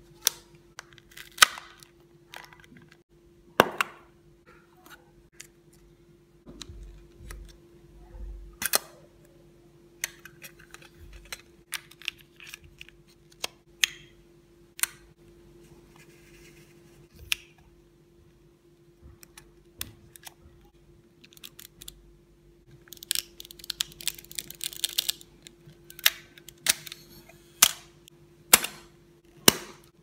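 Nikon FM2n film SLR being handled as its lens is turned and film is loaded: scattered sharp mechanical clicks and snaps, with a quick run of clicking about three-quarters of the way through.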